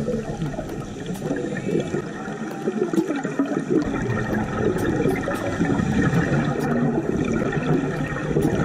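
Underwater bubbling and gurgling of a scuba diver's exhaled air through the regulator, irregular and continuous, with scattered faint clicks.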